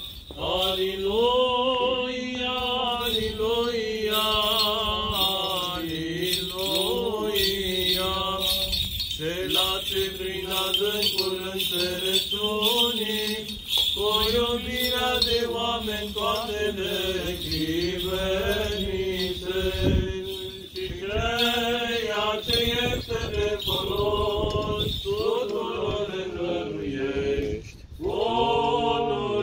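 Eastern Orthodox clergy chanting the memorial service in long, sustained sung phrases, the melody gliding and holding on single notes, with brief pauses between phrases.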